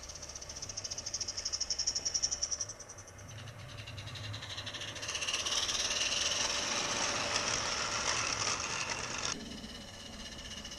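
A 16mm-scale live steam garden locomotive running with a fast, even chuff and hiss. Its train of coaches then rolls past close by, wheels rattling on the small-gauge track. The sound cuts off sharply near the end to a quieter chuffing.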